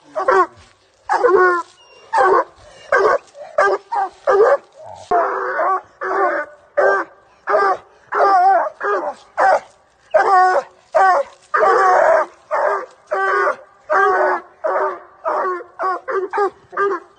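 Coonhound pup yelping and whining without a break, nearly two short high cries a second, excited at a raccoon let out of a live trap.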